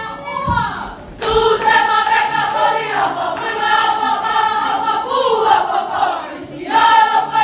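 A group of young voices singing a Niuean song together in unison, holding long notes. The full group comes in loudly about a second in, after a quieter opening, and the singing pauses briefly between phrases.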